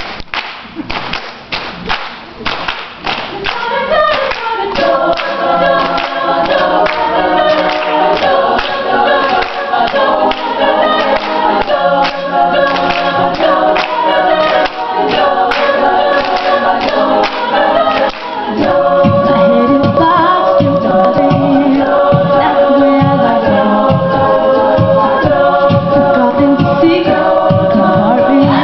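Vocal group singing a cappella. Quick rhythmic clicks open it, layered held chords come in about four seconds in, and it grows louder with a pulsing bass part from about eighteen seconds in.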